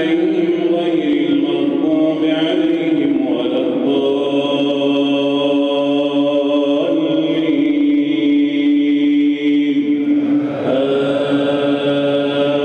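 A male imam reciting the Quran in melodic chanted style into a microphone, singing long held notes that bend and slide in pitch.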